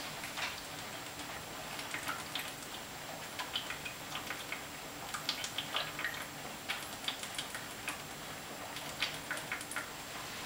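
A person chugging malt liquor straight from a 40 oz glass bottle: a long run of soft, irregular clicking gulps and swallows, several a second at times.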